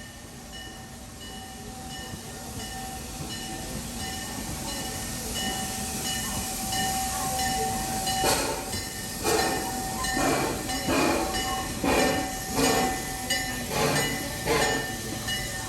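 Amusement-park train running with a steady whine, joined about halfway through by a rhythmic beat of about one and a half pulses a second that gets louder as the train picks up.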